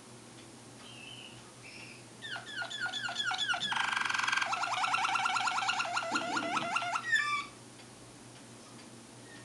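Waterslager (Malinois) song canary singing one phrase of about five seconds: quickly repeated gliding whistled notes, a dense rolling trill in the middle, then more rapid repeated notes before it stops suddenly. A few faint short notes come before the phrase.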